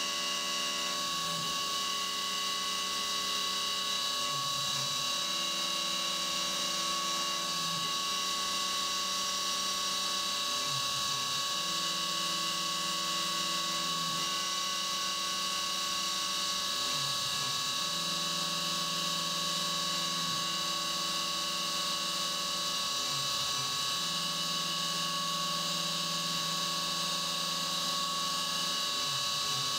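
CNC milling machine cutting a steel-free-hand-unspecified metal part with an end mill under flood coolant: a steady high spindle whine over the hiss and splash of coolant, with a lower tone that breaks off briefly about every six seconds as the 3D toolpath changes direction.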